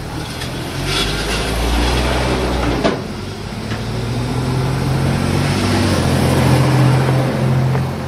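Air-cooled flat-four engine with electronic ignition running on a test stand, its speed rising and falling: the revs climb about a second in, dip briefly near three seconds, build again and drop back near the end.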